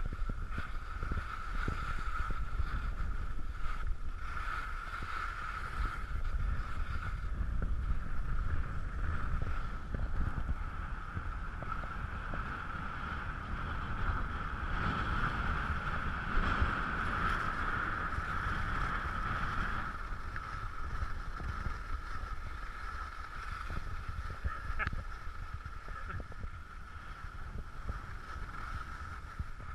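Steady rushing noise of skiing downhill: skis sliding on packed snow and wind blowing over the camera, growing louder for a few seconds in the middle.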